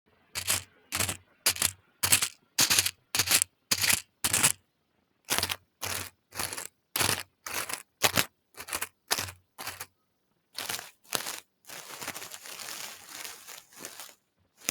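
A run of short, crisp crackling crunches, about two a second, followed near the end by a denser stretch of continuous crackling lasting about two seconds.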